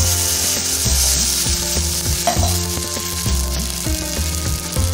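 Water poured into hot spiced oil in a kadhai, sizzling and spitting; the hiss is strongest at first and dies down as the water settles toward a simmer.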